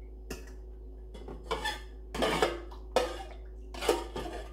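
Metal serving spoon clinking and scraping against cooking pots and a plate while food is dished up, about five separate clinks and scrapes.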